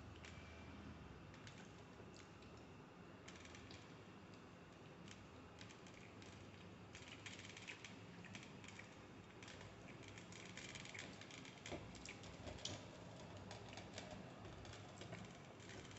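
Faint crisp crackling and small clicks as fingers tear flaky Kerala parotta on a steel plate, coming in bunches that are thickest in the second half.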